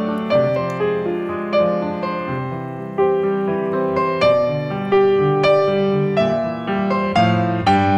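Background piano music: a melody of evenly paced struck notes, roughly two a second, over lower held notes.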